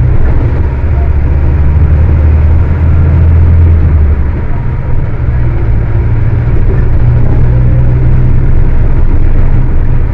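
Volkswagen 17-230 OD bus's diesel engine running under load, a loud, deep, steady rumble. About four seconds in, its lowest note drops away and the sound settles a little higher.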